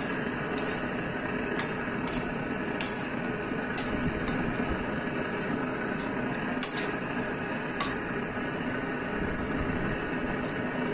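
A metal spoon stirring a thick tomato-sauce stew of chicken and vegetables in a non-stick wok, clicking sharply against the pan about seven times at uneven intervals. A steady hum runs underneath.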